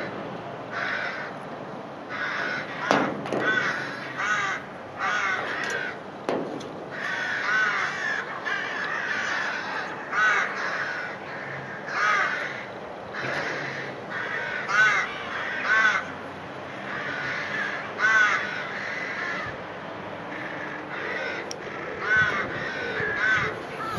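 A bird calling over and over, short calls a second or two apart, with a couple of sharp knocks in the first several seconds.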